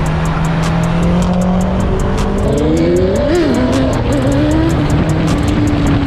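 Vehicle engines and road noise at speed, with an engine revving up and dropping back about three seconds in. Background music with a steady beat plays over it.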